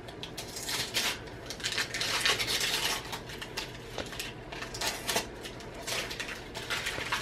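Wrapping paper being rustled and torn by hand as a small boxed present is unwrapped, a run of crinkles and light clicks with a longer tearing rustle about two seconds in.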